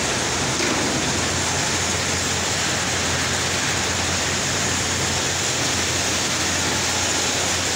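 Steady running noise of tea-factory processing machinery: a continuous even hiss with a low hum underneath.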